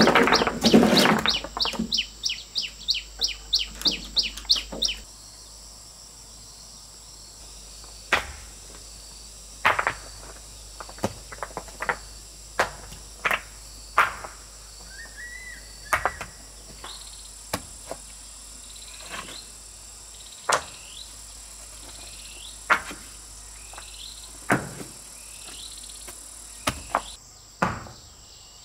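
Crickets or other insects buzzing steadily at a high pitch, under a series of sharp knocks. The knocks come in a quick run of about three a second that fades over the first few seconds, then one every second or two. A few short bird chirps come in the second half.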